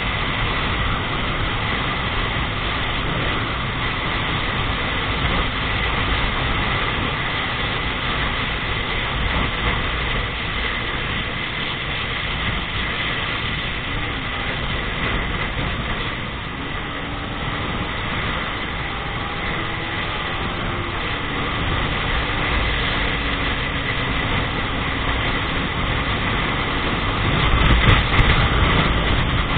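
Steady wind and road noise from a vehicle travelling at speed on a paved highway, with a faint engine hum underneath and a thin steady whine. A louder jolt comes near the end.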